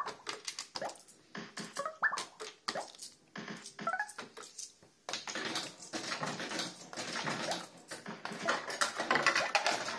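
Barcrest 'Party Animal' fruit machine playing its electronic sound effects: short rising whoops near the start, about two seconds in and about four seconds in, among sharp clicks, then a busier run of effects with rapid ticking from about five seconds on.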